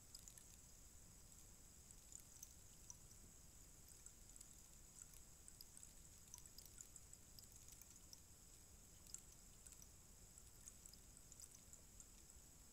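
Faint, steady patter of tiny irregular clicks: the fill of a bamboo rainstick trickling down inside the tube.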